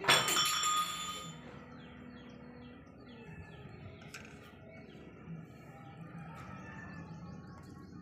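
A sudden loud ringing sound opens, dying away after about a second. Then budgerigars chirp softly in many quick, short, falling notes.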